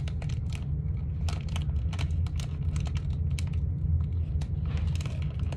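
Irregular light clicks and crackles of fingers picking and pressing at a sealed blind-bag packet, over a steady low hum.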